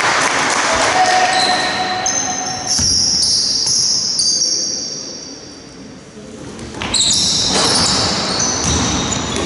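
Basketball game sounds echoing in a sports hall: sneakers squeaking on the wooden court, a ball bouncing and voices. It goes quieter for a few seconds in the middle, then the squeaks pick up again near the end.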